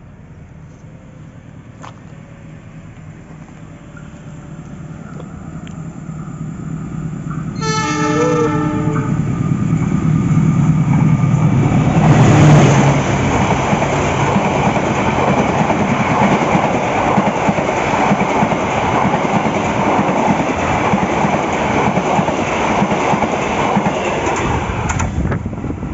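An approaching diesel locomotive sounds its horn once, a held chord lasting about a second and a half, about eight seconds in. The engine grows louder and passes close by at about twelve seconds, followed by a steady loud rumble of the passenger carriages rolling past on the rails.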